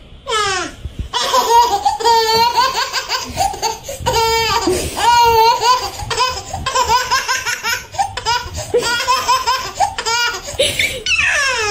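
A baby laughing hard: a long run of belly laughs, one fit after another, with high falling squeals near the start and the end.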